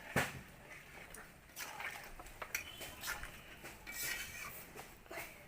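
A spoon knocking and scraping against a cooking pot in scattered, irregular clinks. The sharpest knock comes just after the start.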